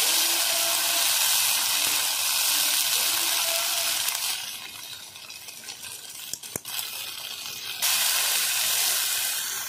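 Wet spice paste of green chilli, ginger and cumin sizzling loudly in hot mustard oil in a kadai. The sizzle dies down a little after four seconds, with a single click in the middle, and flares up again near the end as the paste is stirred with a spatula.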